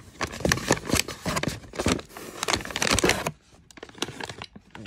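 Plastic dog-treat pouches and paper packaging crinkling and rustling as they are handled in a cardboard box: dense, irregular crackles for about three seconds, then much quieter.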